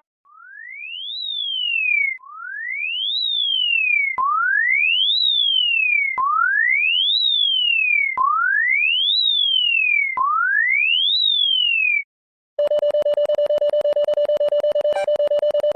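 Electronic emergency alert tone: a single clean tone rises quickly and then falls back part way, six times over at about two-second intervals. After a brief gap near the end, a rapidly pulsing buzzing tone starts.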